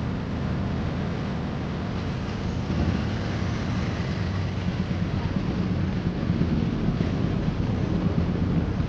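Steady low rumble and rush of a road vehicle in motion, growing a little rougher about three seconds in.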